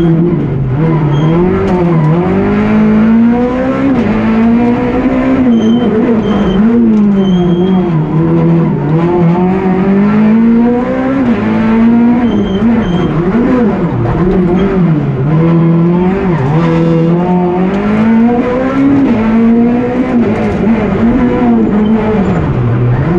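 Peugeot 208 R2's naturally aspirated 1.6-litre four-cylinder engine, heard from inside the cabin at full rally pace. The revs climb and drop again and again through gear changes and braking for corners, with a few short high beeps now and then.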